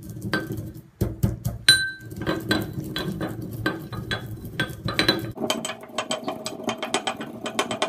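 Brass pestle pounding coriander and fennel seeds in a brass mortar: a run of sharp metallic clinks with a ringing tone, quickening in the last few seconds.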